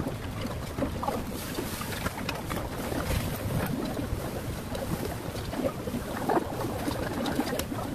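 Metal chopsticks and spoon clicking lightly against a bowl while eating, over a steady rushing noise.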